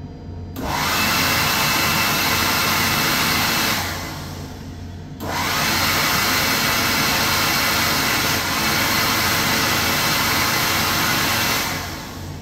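Vortex OZ2100s stainless-steel hand dryer blowing, switched on by a hand held under it. It starts about half a second in, winds down after about three seconds, starts again about five seconds in and runs steadily until just before the end, when it cuts out.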